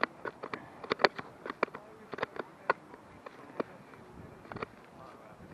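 A run of irregular short clicks and knocks, several a second, that stops after about four and a half seconds.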